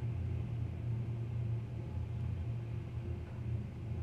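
Low, steady rumble of distant jet aircraft engines around the airfield.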